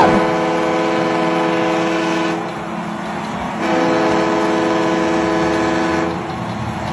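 Ballpark home-run horn sounding a chord of several steady tones, like a train horn, in two long blasts of about two and a half seconds each with a short gap between. It is sounded from a push button to celebrate a grand slam.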